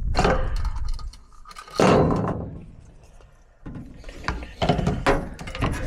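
Clunks and knocks: one heavy thunk about two seconds in that dies away over a second, then a run of lighter knocks and clicks near the end.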